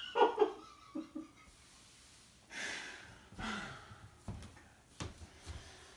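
A man breathing heavily, with a short vocal sound near the start and a couple of loud exhales, then two light knocks about four and five seconds in.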